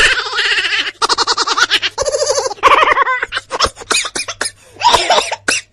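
Laughing sound effects: several clips of rapid, rhythmic laughter follow one another, each a quick run of pulsed "ha-ha" syllables, with a change of laugh about two and a half seconds in and again near the end.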